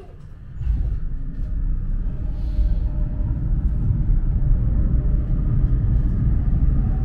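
Prague tram pulling away, heard from inside the car: a low rumble sets in about a second in and builds, with a faint motor whine climbing in pitch near the end.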